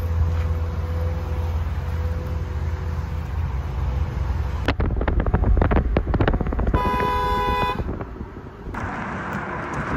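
Roadside traffic: a steady low vehicle hum, then a rough rumbling stretch, and a car horn sounding once for about a second, about seven seconds in.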